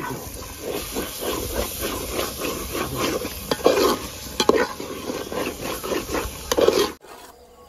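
Metal spatula stirring thick mutton curry in a large metal pot, in repeated scraping strokes that click against the pot, with the masala sizzling. The sound cuts off suddenly near the end.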